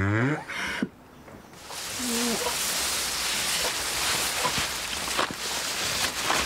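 A cow's low moo, rising in pitch, ends about half a second in. From about two seconds in, a steady rustling hiss of dry grass and leaves follows as a bundle of cut fodder is carried through brush, with a short faint call near two seconds.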